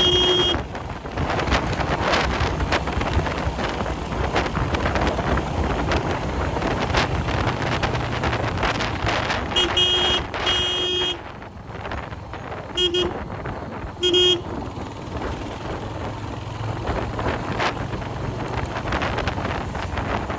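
Royal Enfield Hunter 350's single-cylinder engine running on the move, with wind noise on the microphone. A horn toots for about a second and a half about halfway through, then twice more, briefly.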